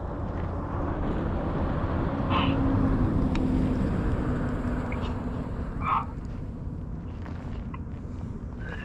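A steady outdoor rumble with a vehicle engine passing, loudest about three seconds in. Two short, higher sounds come about two and a half seconds and six seconds in.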